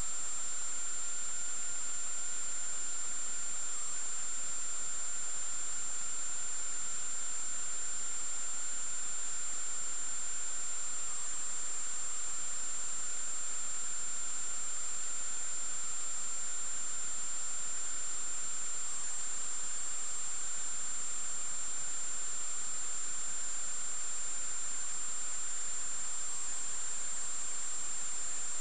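Steady electronic hiss with a constant high-pitched whine and a fainter wavering tone underneath: the self-noise of a cheap date-stamping underwater camera recording in a swimming pool.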